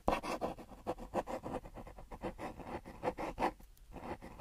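Pencil scratching on paper in quick, irregular sketching strokes: a drawing sound effect.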